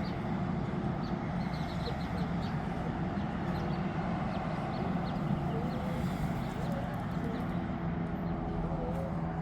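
Steady low rumble of outdoor background noise, with faint short bird chirps scattered through it.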